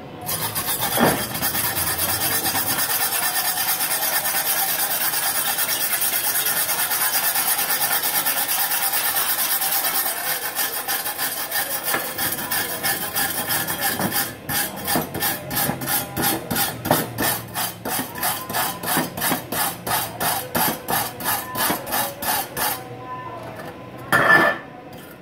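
Steel wire brush scrubbing a fresh gasless MIG weld bead on galvanized steel tube: first a fast, steady scraping, then separate back-and-forth strokes about two to three a second. A brief louder knock near the end.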